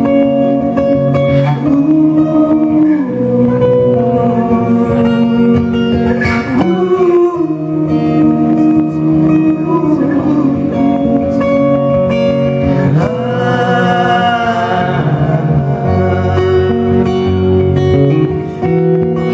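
Live rock band playing a slow song: sustained guitar and vocal lines over bass, with a few sliding notes.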